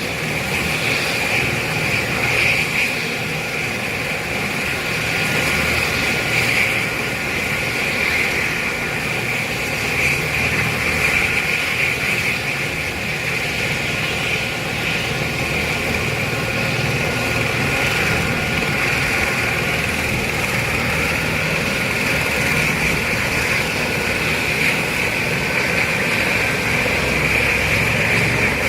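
Air-ambulance helicopter's turbine engine running steadily, a high whine over a low rumble.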